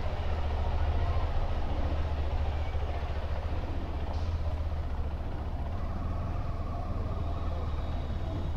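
KTM 390 Adventure's single-cylinder engine running as the bike rides slowly, a steady low drone.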